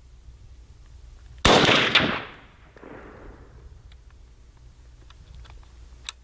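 A single shot from a 300 AAC Blackout rifle fitted with a muzzle brake, firing 150-grain ammunition. It is a sharp, loud crack about one and a half seconds in, with a second peak and echo dying away over the next second or so.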